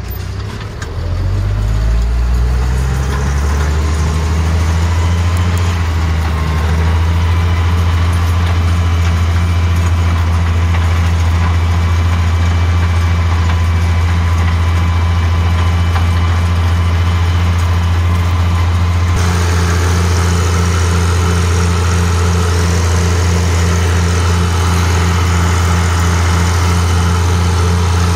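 IHC 956 tractor's six-cylinder diesel engine rising in revs over the first few seconds, then running steadily under load while pulling a rotary harrow and seed drill, heard from inside the cab. About two-thirds of the way through, the sound turns brighter.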